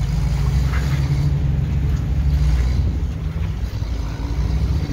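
Off-road 4x4 engine running at low speed while crawling over a rocky trail, a steady low rumble.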